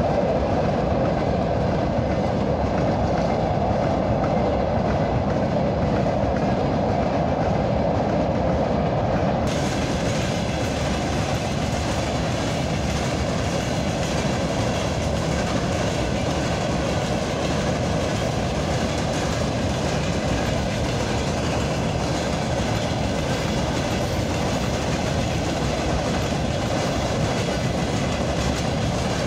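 Loaded open-top freight wagons of a goods train rolling past, their wheels running steadily over the rails, a little quieter after about ten seconds.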